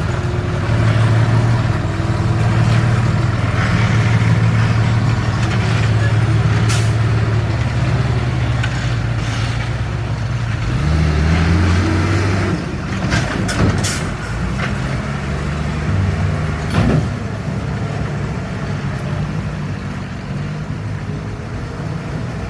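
Heavy diesel engines of earthmoving machinery running under load, their pitch rising and falling as the throttle changes. A few short sharp sounds break in around the middle and once more a few seconds later.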